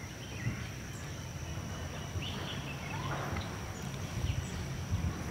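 Outdoor ambience: scattered short bird calls, some gliding in pitch, over a low rumble, with a thin steady high-pitched tone throughout.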